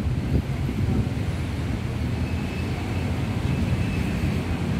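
Steady low rumble of outdoor background noise, with a faint high tone briefly in the middle.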